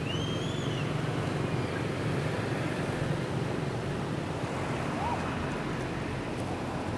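Steady outdoor background rumble, wind or distant traffic. Early on comes one short, high squeak that rises and falls.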